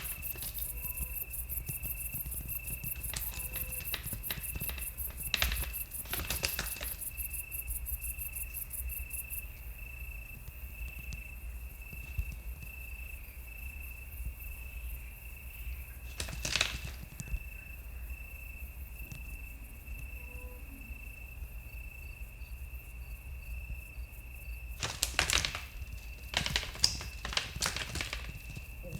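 Night crickets chirping steadily, with a faster, higher insect trill that stops about a third of the way in. Scattered sharp knocks and scuffles break in a few seconds in, again midway, and in a cluster near the end: rutting stags' antlers and hooves.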